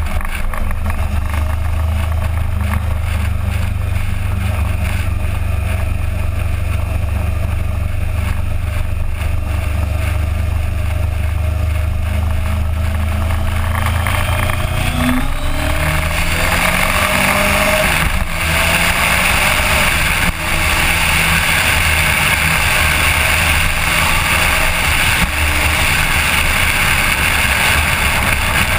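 Suzuki GSX1400 inline-four motorcycle engine running steadily, then accelerating about halfway through with a rising pitch. After that comes a louder, fuller engine and wind noise at speed, broken by a couple of brief dips in level.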